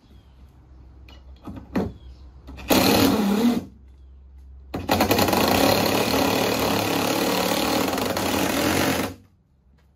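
Cordless drill driving screws into wood: a short burst just under a second long, then a longer run of about four seconds that stops suddenly.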